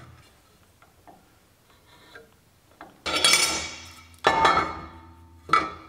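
Lengths of rectangular steel tubing knocking against each other and the steel bench: a few faint taps, then from about three seconds in, three loud ringing clanks a little over a second apart.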